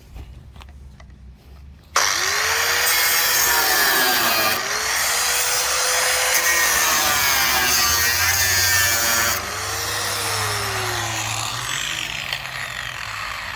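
Angle grinder with a thin 1.2 mm cut-off disc cutting through the trailer's metal box-section side boxing. It starts abruptly about two seconds in, and its pitch dips and rises three times as the disc works through the metal.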